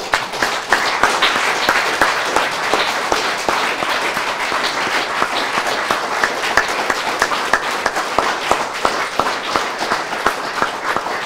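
An audience applauding: many people clapping, starting suddenly and keeping up a steady level.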